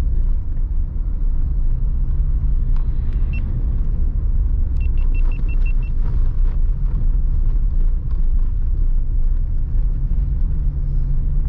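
A truck driving on a snow-covered road, heard from inside the cab: steady low rumble of engine and tyres with small knocks and rattles. About five seconds in comes a quick run of six high beeps.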